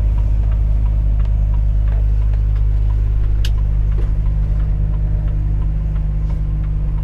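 Volvo FH 460 truck's 13-litre six-cylinder diesel heard from inside the cab, a steady low drone under way, with faint light ticking through it. A single sharp click about three and a half seconds in.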